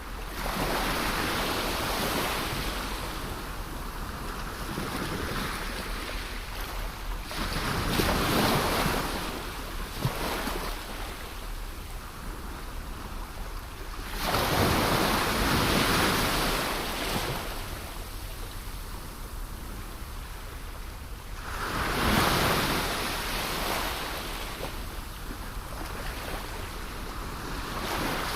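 Ocean waves washing in, the surf swelling and falling away four times, roughly every seven seconds, over a steady rush of water. A low steady rumble of wind on the microphone lies underneath.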